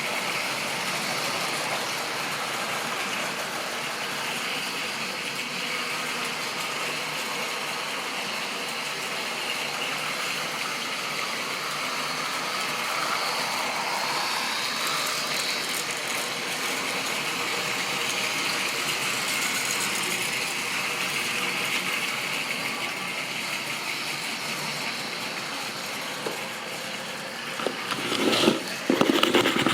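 Model railway train running on the track: a steady whirring rattle of the motor and the wheels on the rails, with a few louder clatters near the end.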